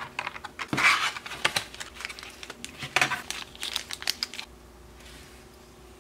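Clear plastic packaging tray crinkling and clicking as an N scale model tank car is pried out of its plastic insert: a run of sharp light clicks and crackles that stops about four and a half seconds in.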